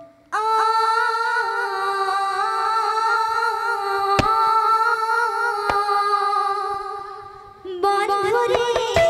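A woman's voice holds one long sung note for about seven seconds with no accompaniment, rising slightly in pitch once or twice and fading near the end. The barrel drums (kirtan mridanga) then come back in with quick strokes.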